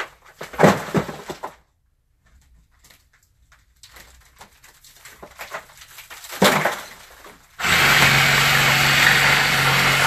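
Water-damaged ceiling drywall crunching and breaking as it is worked loose, with a sharp crack about six and a half seconds in. Then a power tool starts and runs steadily, cutting through the drywall.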